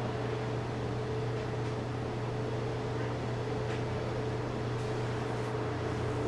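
Steady low mechanical hum over a constant hiss, with a few faint, short high ticks.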